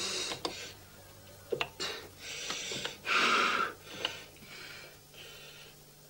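A few scattered clicks of laptop keys being pressed one at a time, with short bursts of hiss between them.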